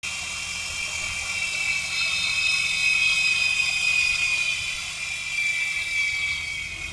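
Helicopter whir: a steady high-pitched whine over a low hum, sinking slightly in pitch toward the end.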